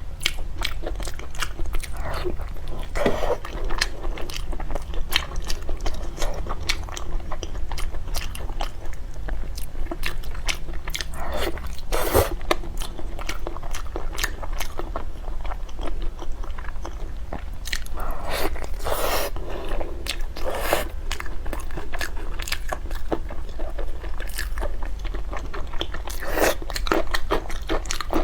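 Close-miked eating: someone biting and chewing crunchy food, a dense run of short crunches with several louder bites spread through, over a low steady hum.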